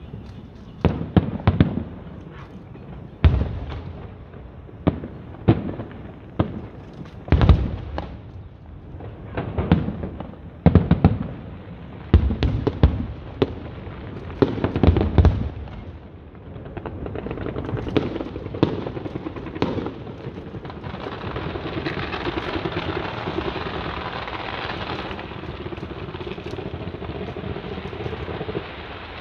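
Aerial fireworks bursting: a rapid series of sharp booms and bangs for about the first half, then a dense, continuous crackling from the middle onward.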